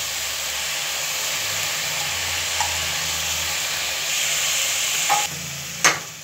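Onion, vegetables and spices sizzling in oil in a pressure cooker as split pigeon peas (toor dal) are tipped in from a steel bowl. The sizzle drops a little about five seconds in, and a single sharp metal clink follows just after.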